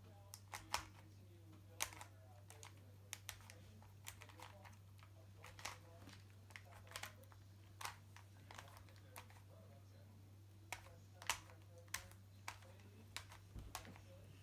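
Rubik's Cube layers being twisted by hand: irregular plastic clicks and clacks, one or two a second.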